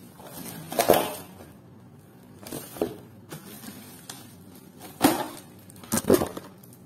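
Cardboard box and plastic packaging being handled: four short, sharp rustles and scrapes, about one, three, five and six seconds in.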